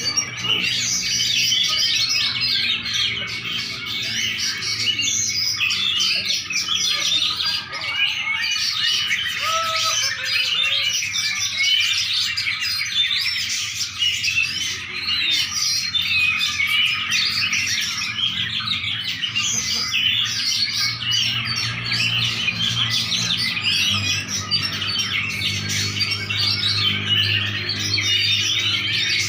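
A songbird singing continuously: a dense, unbroken run of rapid high chirps and trills.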